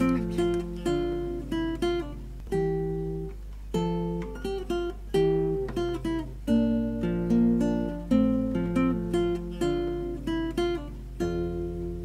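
Instrumental music on acoustic guitar: plucked notes in a steady flowing pattern, ending on a chord left to ring near the end.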